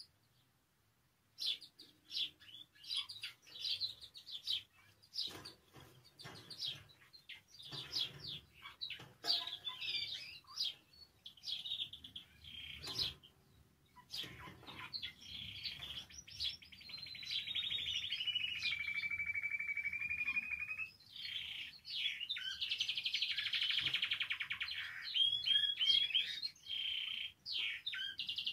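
Spanish timbrado canary singing: after a brief pause, a run of quick chirps and short notes, then long rolling trills in the second half, one gliding down in pitch and holding steady before the song breaks into fast pulsed rolls.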